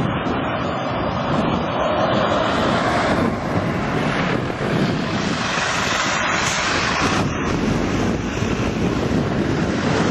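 Wind rushing over the microphone, mixed with the steady noise of road traffic passing; the level swells gently and stays loud throughout.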